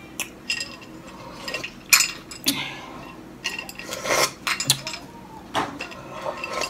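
Cutlery clinking and scraping against a plate during a meal: irregular short sharp clicks and taps, a few seconds apart.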